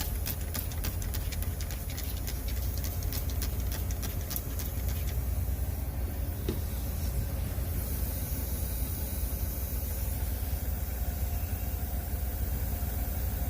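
Semi-truck idling with a steady low rumble, with a run of quick sharp clicks in the first five seconds and a high hiss about halfway through.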